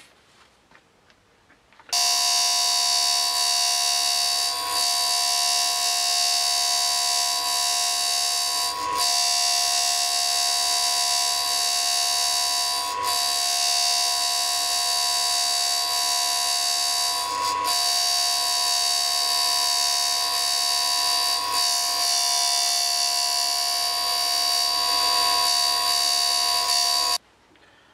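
D-bit universal grinder running with a thin 125 mm cut-off wheel, grinding a groove deeper into a steel MIG welder drive roller: a loud, steady high whine with several held tones over a hiss. It starts suddenly about two seconds in and stops suddenly just before the end.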